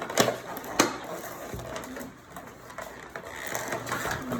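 Toy packaging being handled as a piece is taken out of the box: cardboard and plastic rustling and rattling, with two sharp clicks in the first second.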